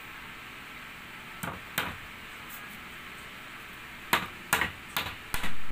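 Hammer driving finishing nails into a wooden slat: two strikes about a second and a half in, then a run of quicker strikes, about two to three a second, from about four seconds in.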